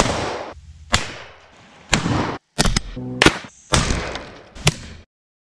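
A quick series of gunshots and target impacts spliced back to back, about eight sharp cracks in five seconds, some followed by a brief rushing decay and several cut off abruptly; the sound stops dead about five seconds in.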